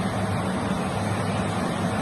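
Steady low hum and rumble under an even hiss, with no sudden sounds.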